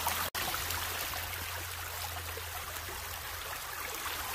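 Shallow mountain stream running steadily over a stony bed. The sound drops out for an instant about a third of a second in.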